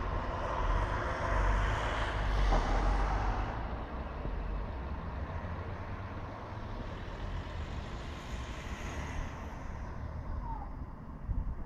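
Street traffic: a vehicle passes close by, loudest about one to three seconds in, then fades into a steady low traffic rumble.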